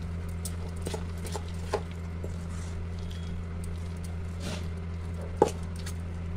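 Steel spoon scraping and clicking against a steel bowl while beating a coarse, moist chana dal paste, with one sharper clink about five seconds in. A steady low hum runs underneath.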